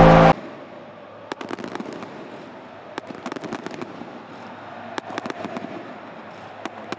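Stadium fireworks crackling in four quick volleys of sharp pops over a steady crowd din. A loud music track cuts off just as the sound begins.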